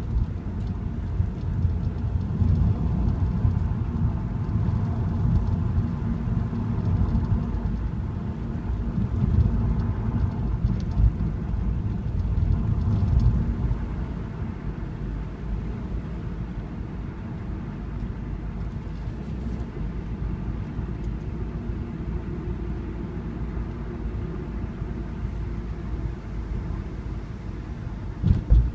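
Car driving, heard from on board: engine and tyre road noise make a steady low rumble that eases a little about halfway through, with a brief thump near the end.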